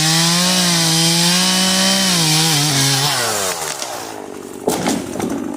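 Husqvarna 120 two-stroke chainsaw held at high revs, then the throttle is released and the engine speed falls away over a second or two. A short sharp crackle comes near the end.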